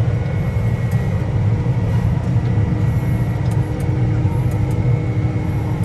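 Combine harvester running under load, heard from inside its cab: a steady low engine-and-machinery drone with a faint constant whine above it.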